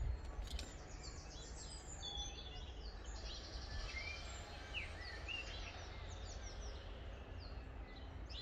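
Small birds chirping and singing over a steady low outdoor rumble, with a quick trill of rapidly repeated notes about three seconds in.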